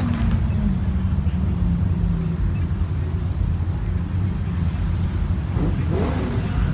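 Car engines running at low speed as a Porsche Boxster creeps forward, a steady low rumble throughout; a steady engine note fades out about two seconds in. Faint voices come in near the end.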